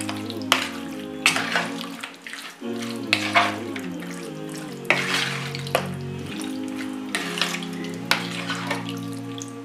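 Wet squelching of raw chicken pieces being mixed by hand in lemon juice, salt and oil, in irregular squishes, over background music with slow held notes.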